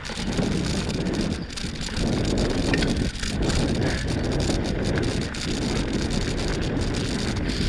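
Wind buffeting the microphone while a bicycle rolls over a dirt trail, its tyres crunching along with light clicks and rattles from the bike.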